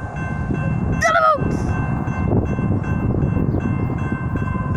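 Railroad crossing warning bell dinging steadily over a low rumble as the signal lights flash: the warning that a train is approaching. About a second in, a brief high-pitched voice cries out.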